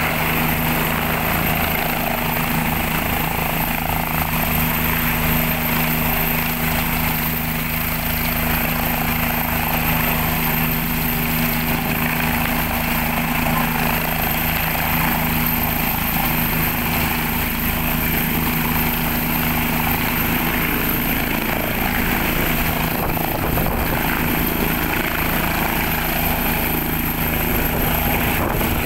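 Bell 429 helicopter hovering low and setting down: the steady beat of its four-blade main rotor over the high whine of its twin turboshaft engines.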